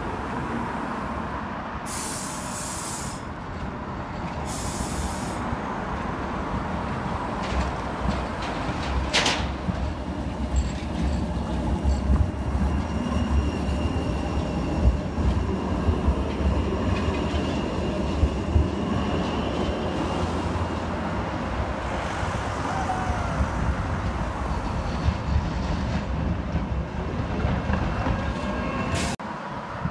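Class 399 electric tram-train passing on street track: a low rumble of steel wheels on the rails that swells as it goes by close, with a thin high wheel squeal while it is nearest, then fades as it pulls away.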